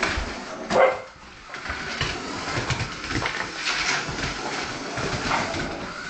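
Brittany spaniel barking, with one loud bark about a second in, then whining and yipping during play.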